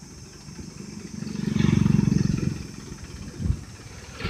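Mahindra tractor's diesel engine running as the tractor drives by, swelling louder about a third of the way in and then easing off, with one short knock near the end.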